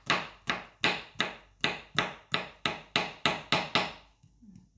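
Kitchen knife chopping garlic on a wooden cutting board: quick, even knocks, about three or four a second, stopping about four seconds in.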